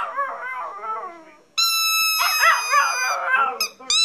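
Chihuahua howling in wavering rising-and-falling yelps that trail off about a second and a half in. Then a squeaky toy gives a long steady squeal, and the dog howls along with it again.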